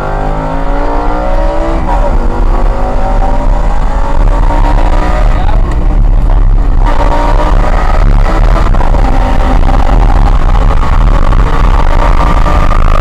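Lamborghini engine accelerating hard, its pitch climbing. It drops at an upshift about two seconds in, eases off briefly about six seconds in, then climbs steadily again, over a constant low rumble.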